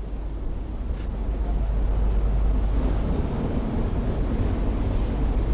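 Wind rumbling on the microphone over the steady wash of the sea against the breakwater, a low continuous noise without any distinct events.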